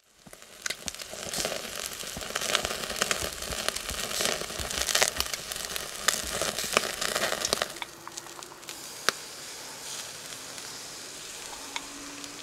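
Chicken yakitori skewers sizzling on a wire grill over charcoal, with frequent sharp crackles and pops. About two-thirds of the way through it settles to a softer, steadier sizzle with only an occasional pop.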